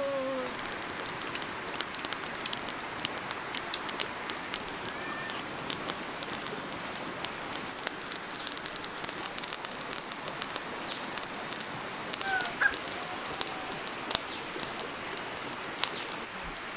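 Outdoor ambience: a steady hiss with scattered sharp crackles, densest in the middle, over a thin high steady tone. A few short bird chirps come about five seconds in and again near twelve seconds.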